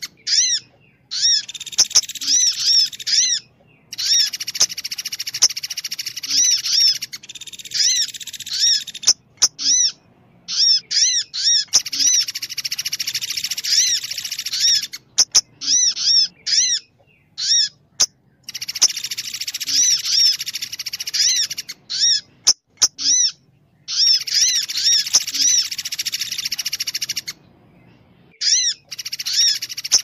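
Bird-lure recording of pelatuk beras and sogon calls: bursts of a few seconds of rapid, high twittering notes over a dense high chatter, repeated again and again with short pauses between them and a few sharp clicks.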